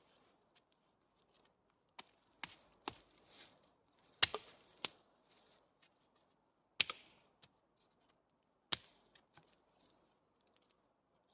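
A series of sharp, irregularly spaced knocks and clacks of hard objects struck together, some followed by a short scrape or rustle.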